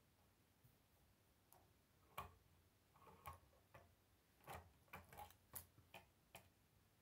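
Faint, irregular clicks and light knocks of a plastic K'nex model car being handled and turned on a wooden tabletop. They begin about two seconds in and come more often near the end.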